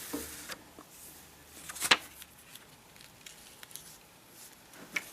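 Quiet handling sounds of an adhesive skin patch being peeled from its backing and pressed down: light rustling with a few faint ticks, a sharp click about two seconds in and a smaller one near the end.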